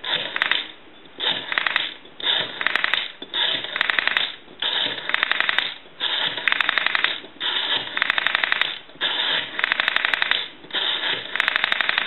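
Western Electric 202 rotary dial being wound round and let go again and again; each return sends a run of evenly spaced pulse clicks, about ten a second, with short pauses between digits as the next number is pulled round. The dial has been cleaned, oiled and adjusted and is pulsing as it should.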